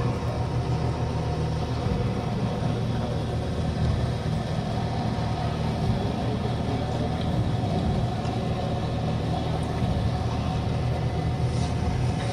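Steady low outdoor background rumble.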